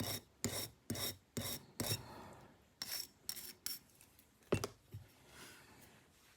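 Hand scrubbing strokes back and forth on a D2 steel knife blade, about two a second, each with a faint metallic ring: touching up a small spot of rust or sap. The strokes pause, start again, and a single sharp tap comes about four and a half seconds in before the rubbing turns fainter.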